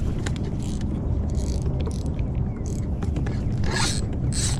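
Fishing reel ratcheting in short raspy bursts, over a steady low rumble.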